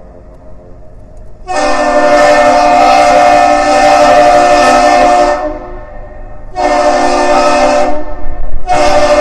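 A deep, loud horn sounds three steady blasts. The first is long, about four seconds. A shorter one follows, and a third begins near the end.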